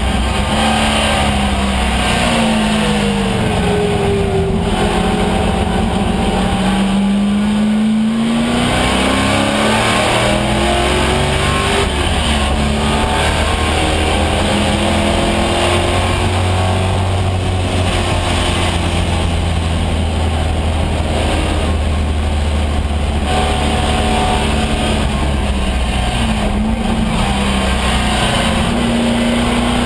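AMC Javelin AMX race car's engine at racing speed, heard from inside the caged cabin over road and wind noise. Its pitch falls under braking, climbs back under hard acceleration several times, holds steady at high revs for a long stretch, then dips and climbs again near the end.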